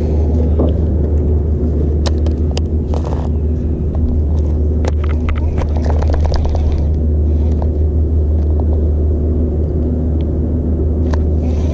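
Steady low rumble and hum of a small fishing boat's motor running. Scattered short clicks and knocks come from handling a baitcasting rod and reel.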